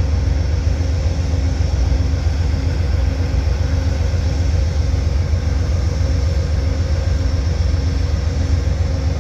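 Amtrak GE Genesis diesel-electric locomotive standing at idle, a steady low rumble with a faint hum.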